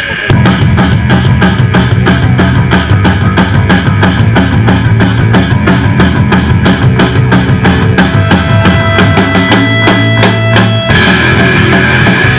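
Live rock band (drum kit, electric guitars and bass) starting a song abruptly with a steady driving beat. About eleven seconds in it shifts into a denser, fuller section.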